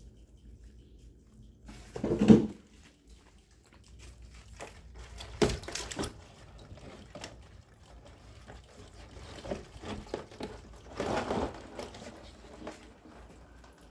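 Irregular handling noises: small clicks and scrapes with louder bumps about two, five and eleven seconds in, the first the loudest, and some faint liquid sounds.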